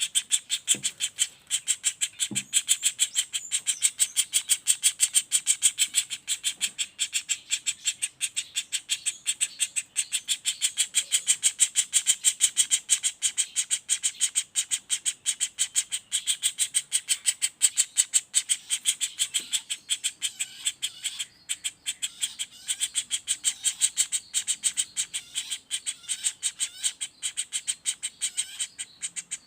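Young common flameback woodpecker (pelatuk bawang) calling in a fast, unbroken rattle of sharp, high notes, about ten a second, without a pause.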